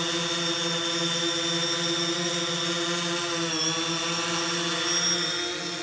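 DJI Phantom 3 quadcopter hovering, its propellers and motors giving a steady multi-toned whine. The pitch dips briefly about three and a half seconds in, as the motors change speed.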